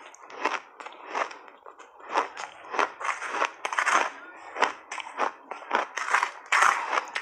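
Shaved ice crunching in big mouthfuls close to a clip-on mic: a run of crisp crunches about two a second, with a metal spoon scraping into the ice heap for the next scoop.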